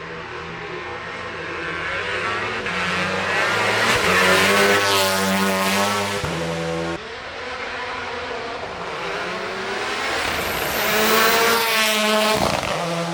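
Hillclimb race car engines at full throttle as cars accelerate away from the start line, the engine note rising again and again through the gears. The sound drops suddenly about halfway through, then builds to a second loud burst of acceleration.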